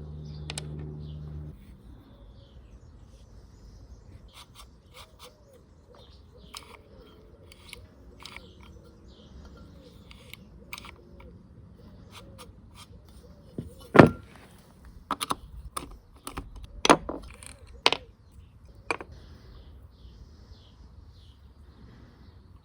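Small metal parts and tools being handled during hand work on a mower's recoil starter: scattered clicks and clinks, a brief steady hum at the start, and a run of sharp knocks about two-thirds of the way through.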